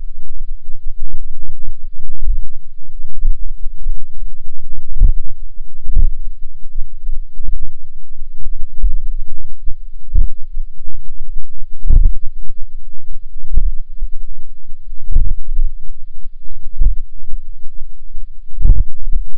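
Dull, low thuds at irregular intervals of about a second or two, over a steady low rumble. These are digging strikes in the soil, picked up through a buried fibre-optic cable by a distributed acoustic sensor.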